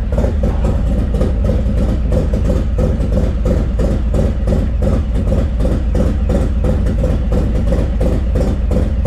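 Harley-Davidson Milwaukee-Eight V-twin, built up with a Screamin' Eagle 131ci Stage IV kit, T-Man high-compression pistons and a Cycle-Rama CR540 cam, idling steadily on the dyno with an even beat about four or five times a second.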